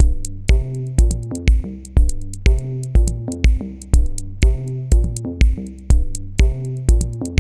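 Electronic background music with a steady drum-machine beat, about two kicks a second, over a stepping synth bass line.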